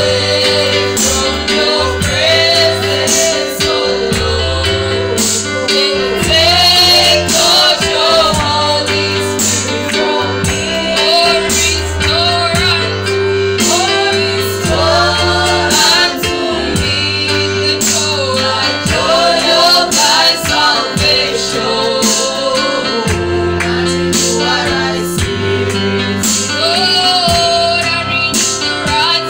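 Gospel music: singing voices over a steady beat and bass.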